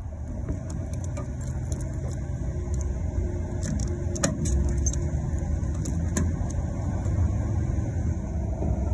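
A vehicle's engine idling with a steady low rumble. Over it come scattered small clicks and rattles of the fuel filler door and cap being opened by hand, the sharpest about four seconds in.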